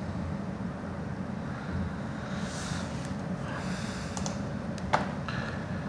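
Steady low hum and hiss of background room noise picked up by the narration microphone, with a few faint rustles and a single sharp click about five seconds in.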